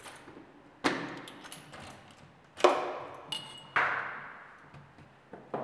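A key turning in a front door's lock, with four sharp metallic clunks from the lock and handle and a jingle of keys. The loudest clunk comes about halfway through.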